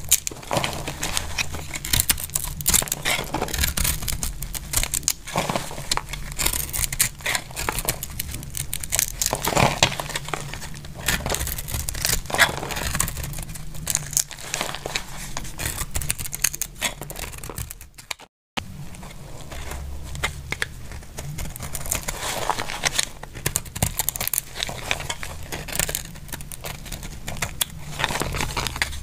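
Knife blade slicing thin plates off a bar of dry, hardened soap: a dense run of crisp crackling and scraping as the brittle flakes break away. The sound cuts out for a moment about two-thirds of the way through.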